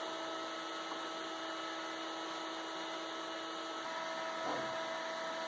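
Steady hum with a faint whine from running equipment, unchanging throughout.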